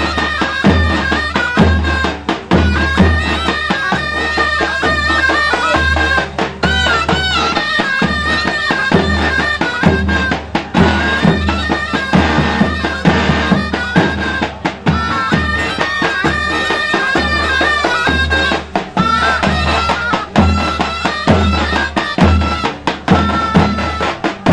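Davul and zurna playing a Turkish folk tune: the shrill double-reed zurna carries a fast, ornamented melody over the steady beats of the davul bass drum.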